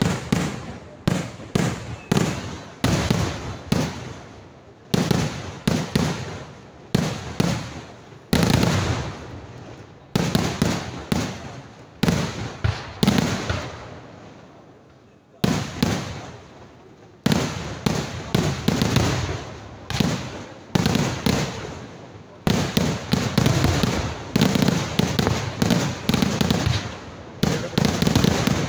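Kerala temple-festival fireworks (vedikettu): a rapid string of loud bangs from bursting shells and firecrackers, each followed by a fading echo. There is a brief lull just past the middle, then the bangs come thicker toward the end.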